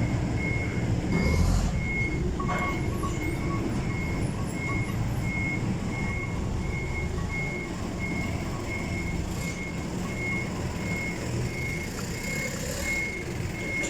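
A vehicle's back-up alarm beeping, one high tone repeating rapidly at an even rate throughout, over the steady low rumble of a running diesel engine.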